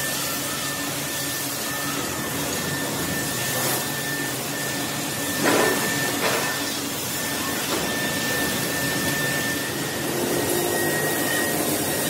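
Steady machine noise in a metalworking factory: an even hiss with a thin, steady whistle running through it, and two brief louder rasps about five and a half and six seconds in.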